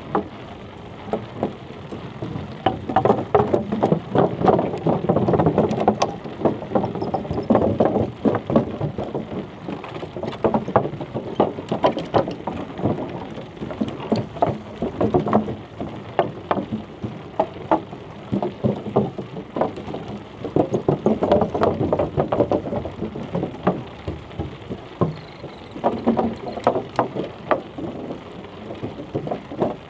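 Bicycle riding noise: a dense, irregular crackle of small knocks and rattles over a rumble, swelling and easing in stretches.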